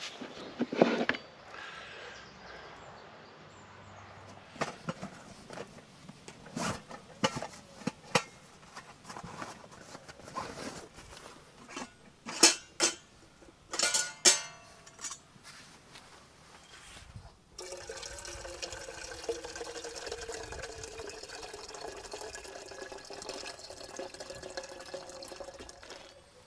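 Metal clinks and knocks of a stainless steel coffee percolator's basket and lid being handled, the loudest in a cluster around the middle. About two-thirds in, a steady liquid sound begins, like water being poured, and runs on evenly.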